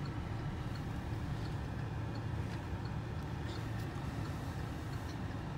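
Steady low rumble of a car heard from inside its cabin: engine and road noise.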